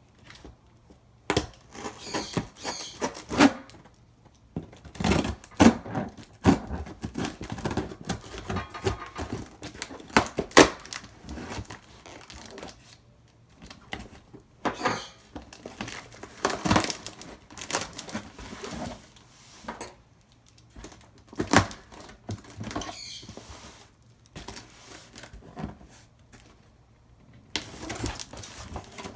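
Hands working at a taped cardboard shipping box: irregular rustling, scraping and crinkling of cardboard and packing tape, with sharp knocks and short stretches of tearing, broken by a few brief pauses.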